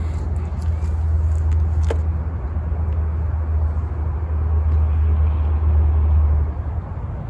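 A steady low rumble that cuts off suddenly about six and a half seconds in, with a few light clicks in the first two seconds.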